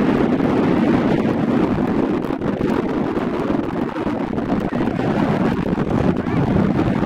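Wind buffeting the microphone: a steady, dense rushing rumble.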